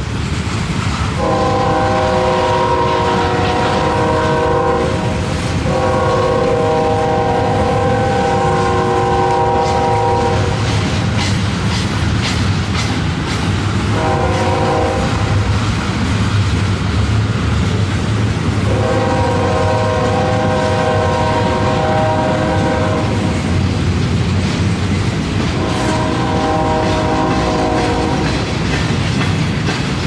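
Locomotive air horn sounding a chord of several notes in five blasts: two long, one short, then two more long ones. Under it runs the steady rumble and clickety-clack of a double-stack intermodal train's well cars rolling past.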